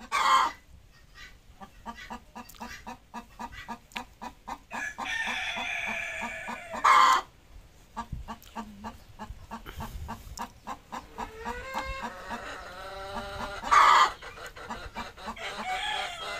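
A desi hen clucking steadily and softly, with three short, loud squawks (one at the very start, one about halfway, one near the end) and two long, drawn-out calls between them.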